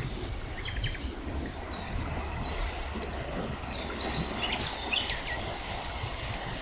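Small songbirds singing in quick trilled phrases, one after another, over the steady rush of a river.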